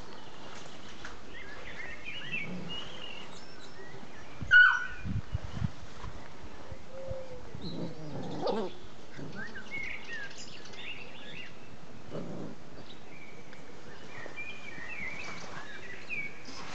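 Old English Sheepdog puppies playing rough together, with small puppy squeaks and growls and one sharp yelp about four and a half seconds in.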